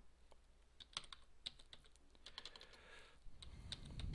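Typing on a computer keyboard: faint, irregular key clicks, a few each second.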